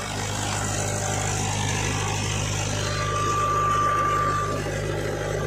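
Mahindra tractor's diesel engine running steadily. A brief high whine rises over it about three seconds in.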